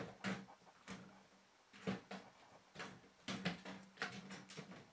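Plastic flap door of a covered cat litter box clacking as a kitten bats and pushes it: irregular light clicks and knocks, several in quick succession.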